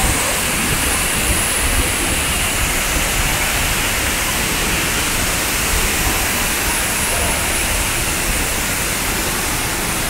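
Artificial waterfalls pouring down a rock cliff into a pool: a steady rush of falling water.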